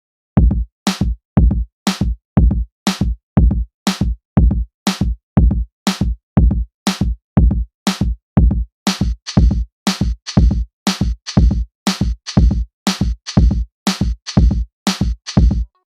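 Electronic background music with a steady drum-machine beat, about two kicks a second, starting just after a moment of silence; a brighter hi-hat layer comes in around nine seconds in.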